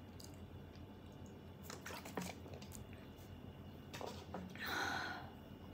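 Drinking from a plastic water bottle: a few faint clicks and gulps, then a short hiss near the end.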